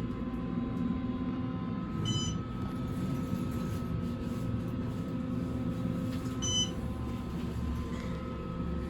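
Elevator running with a steady hum, and two short, high electronic beeps about four seconds apart.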